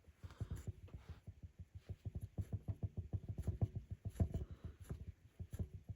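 Rug hook poking through the backing cloth and pulling wool loops up: a quick run of soft pops and scratchy ticks, several a second.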